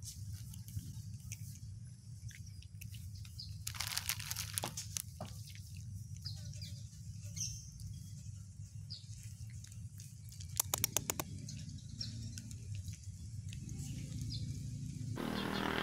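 Tortoiseshell cat eating dry kibble from a plastic bag, crunching, with the bag crinkling. The crunching comes in two clusters of sharp clicks, a few seconds in and again past the middle, over a steady low rumble.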